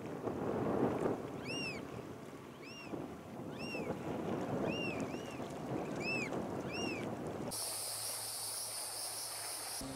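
American oystercatchers calling: a string of short, loud, arched whistles about once a second, over wind buffeting the microphone and lapping water. After about seven and a half seconds the calls stop and a steady high buzz takes over.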